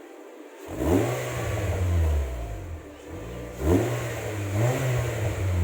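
Honda BR-V engine revved twice through an aftermarket exhaust muffler. Each rev climbs, holds for about two seconds and drops back toward idle.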